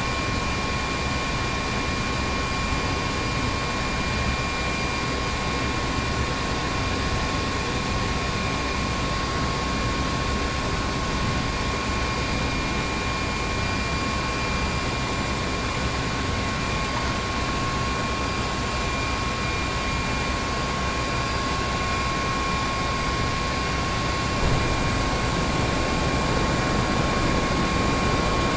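Helicopter running steadily, with a constant turbine whine over the rotor and engine rumble. It grows slightly louder about 24 seconds in.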